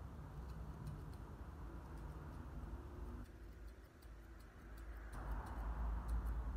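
Grooming scissors snipping through the wig hair of a model dog head: a run of light, irregular clicks over a steady low hum, with louder rustling near the end.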